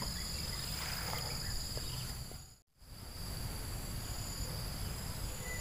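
Outdoor ambience: a steady high-pitched insect drone over a low rumble, cutting out for a moment about halfway through.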